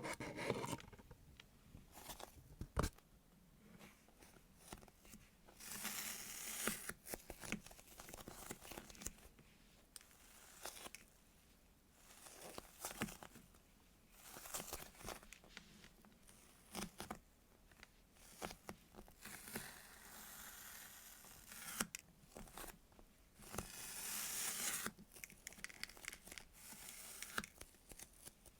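Squishy toys being handled and squeezed close to the microphone: irregular bursts of crinkling and rustling, some about a second long, with small clicks and taps in between.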